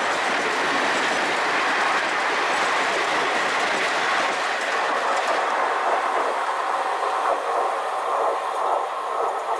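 Express train's passenger coaches passing close by at speed: a loud, steady rush of wheels on the rails.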